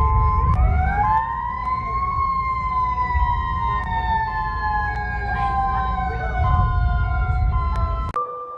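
EAS-style emergency alert alarm: a siren tone rises over about a second and a half, then falls slowly. Beneath it are electronic tones changing pitch in steps and a heavy low rumble, and it all cuts off suddenly near the end.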